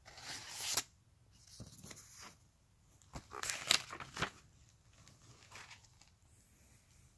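Paper pages of a picture book rustling as the book is handled and a page is turned: a rising rustle in the first second, then a few short swishes around three to four seconds in.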